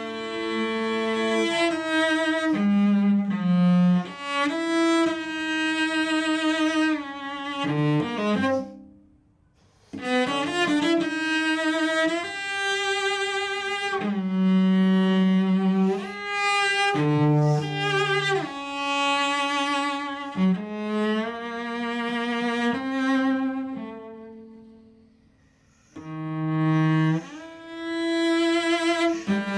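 Solo cello, bowed, playing slow sustained notes with vibrato, often two notes at once. The sound dies away to near silence twice, about nine seconds in and again about twenty-five seconds in, before the playing resumes.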